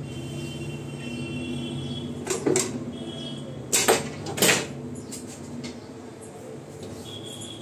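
Hard kitchen items knocking and clattering as they are handled: two knocks about two and a half seconds in, then three louder ones a little over a second later, over a steady low hum.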